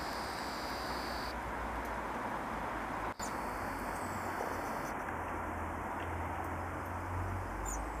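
Quiet outdoor background: a steady hiss with a low rumble, cut by a brief dropout about three seconds in, with a couple of faint, short high chirps.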